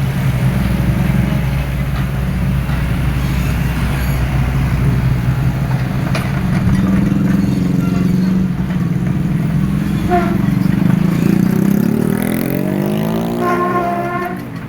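Excavator diesel engine running steadily, then revving up with a rising pitch over the last few seconds before dropping back near the end.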